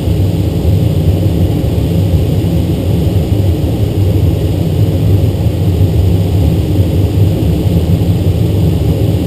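Steady rushing of airflow around the cockpit of a DG-1000 two-seat glider flying fast.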